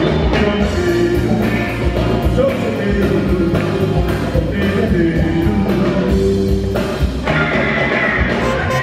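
Live soul-funk band playing with a steady drum beat and bass, a man singing lead into a microphone over it.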